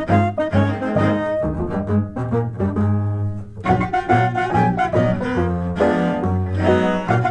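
Instrumental background music with a line of low bass notes under shorter higher notes.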